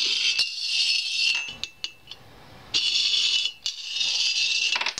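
Metal coin sliding down an aluminium channel, a high metallic scraping rattle, twice, each run lasting about a second and a half to two seconds, with a sharp knock near the end.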